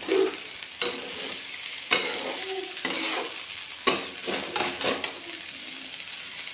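A spatula stirring and scraping rice frying in a metal kadhai over a gas flame, with a steady light sizzle. The spatula knocks sharply against the pan four times, about once a second.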